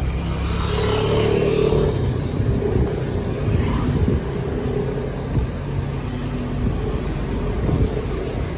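Street traffic: motor vehicle engines running close by, a low rumble with a hum that rises and fades.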